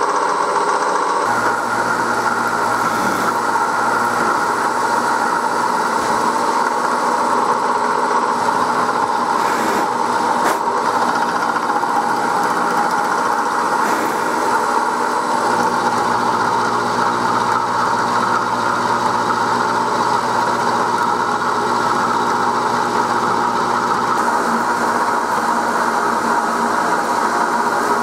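1938 Bridgeport M-head milling machine running steadily with a constant whine while a 10 mm end mill roughs out a pocket in the block under flood coolant.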